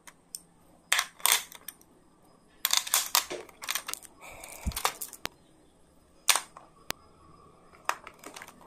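Plastic pens, pencils and an eraser clicking and clacking against a plastic pencil case as they are set into it, in irregular sharp knocks with a brief rustle near the middle.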